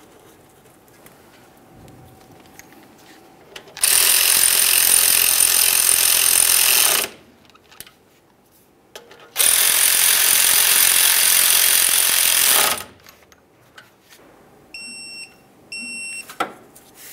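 Power ratchet running twice, about three seconds each, spinning in the brake caliper's two slider bolts. Near the end, a torque wrench beeps twice, signalling that the set torque of 20 foot-pounds has been reached.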